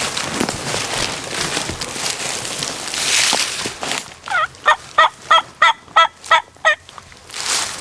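A male wild turkey gobbling once, close by: a quick rattling run of about nine notes lasting under three seconds, starting a little after halfway. Before it, a rustling noise.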